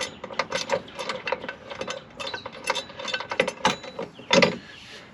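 Irregular metallic clicking and clinking from a bolt and its washer being worked into a running-board mounting bracket under a pickup truck, roughly three or four clicks a second, with one heavier clunk about four seconds in.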